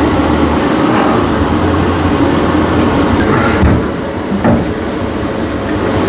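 A steady, loud rumbling hum with a few short knocks and scrapes about halfway through and near the end, as the stuck fuel tank filler neck is worked loose.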